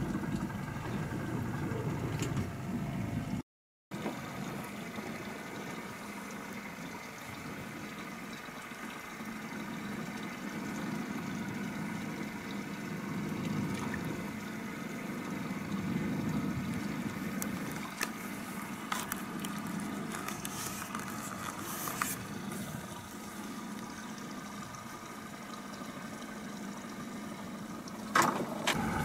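Boat motor running steadily at trolling speed, with water splashing and lapping at the hull. A few light clicks and knocks come in the second half.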